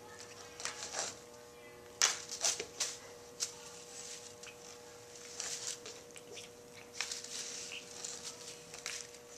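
Stiff broom bristles rustling and scratching as a cat claws and bites at them: irregular scratchy rustles, in bunches of several a second, over a faint steady hum.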